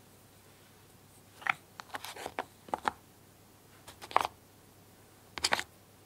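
Small wooden popsicle puzzle pieces being lifted out of their slots in a wooden puzzle board and clicking together in the hand: a few clusters of light wooden clicks and knocks, starting about a second and a half in.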